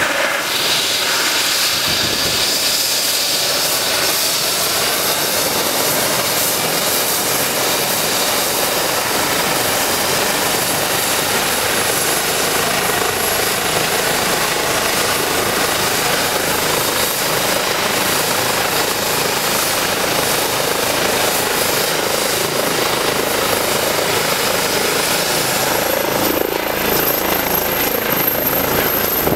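Eurocopter EC135 helicopter's turbine engines and rotors running at high power, a steady loud whirr with a thin high whine over it. About three seconds before the end the whine steps up in pitch as the helicopter lifts off.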